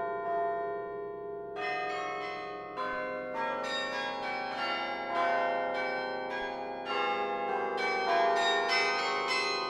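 Bells of the Laura Spelman Rockefeller Memorial Carillon played from its baton keyboard: a chord left ringing, then single struck notes that come more often from about seven seconds in, each bell ringing on long and overlapping the next.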